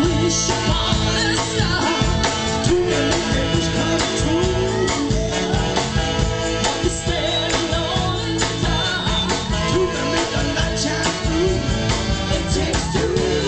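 Live soul band playing: male and female singers over saxophone, trumpet, guitar and a steady drum beat.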